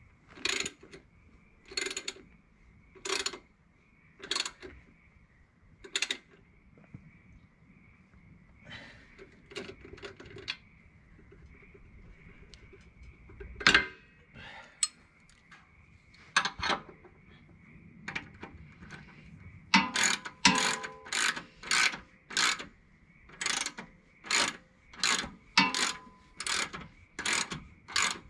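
Socket ratchet clicking in repeated strokes as the bolt at the rear of a Jeep Cherokee's front lower control arm is turned: slow strokes about a second apart at first, a single sharper knock about halfway, then quicker strokes about two a second over the last eight seconds.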